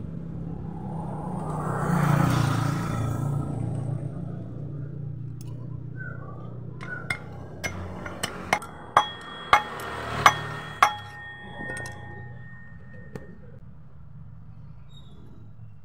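Hammer tapping on metal: about eight sharp strikes, each with a ringing metallic tone, grouped from about seven to eleven seconds in. It is typical of a new greased bearing being driven into a scooter's CVT pulley. A swell of rushing noise comes about two seconds in.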